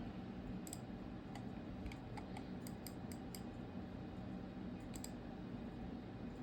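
A run of light, sharp clicks, a few at a time and clustered near the middle, over a steady low hum.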